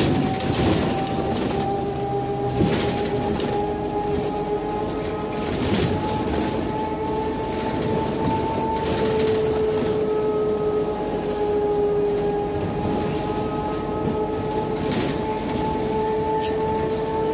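Scania K270 trolleybus running along, with a steady whine in two tones that creeps slowly up in pitch and then eases back, over a constant road rumble. A few sharp knocks and rattles come through as it rides.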